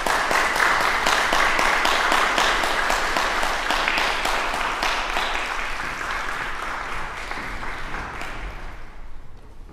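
Audience applauding: a dense clatter of many hands, fullest in the first few seconds, then thinning out and dying away near the end.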